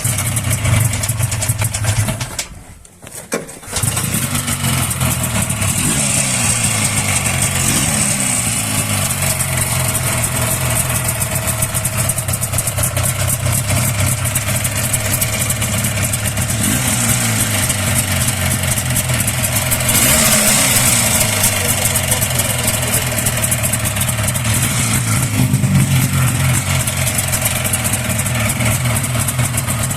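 Buran Leader snowmobile's two-stroke twin engine, its fan cover off, started: it runs about two seconds and dies, then restarts a second or so later and runs steadily. The engine has a knock that the owners suspect comes from the crankshaft or a piston, something in the cylinders.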